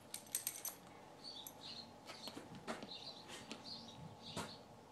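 Light metallic clinks of a horse bridle's bit and buckles as it is lifted onto the horse's head, a quick cluster about half a second in and a few single clicks later.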